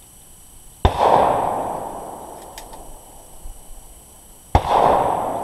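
Two gunshots about four seconds apart, each a sharp crack that rings out in a long echoing tail.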